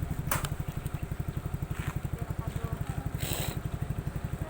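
Suzuki Skydrive Crossover scooter's single-cylinder engine running steadily at low revs, an even putter of about a dozen beats a second. A few short clicks and a brief hiss about three seconds in.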